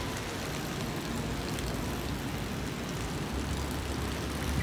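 Rainy city street ambience: a steady hiss of rain and wet traffic noise, with a low rumble swelling in the last second or so.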